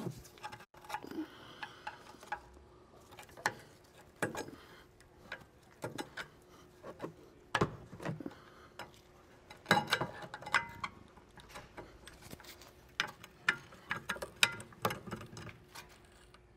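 Flathead screwdriver levering between a worn brake pad and the rotor in a Mercedes W203 rear brake caliper: irregular metallic clicks and short scrapes as the caliper pistons are pushed back into their bores.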